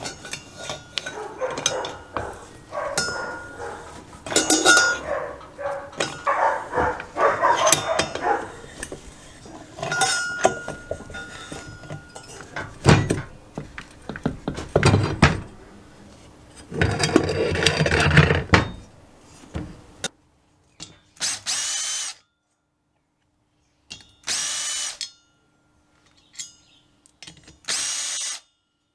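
Socket ratchet clicking and clanking while it works the loosened flywheel nut off a Kawasaki KF100 engine. Then a cordless drill-driver runs in three short bursts of about a second each on the hub of the flywheel's starter cup.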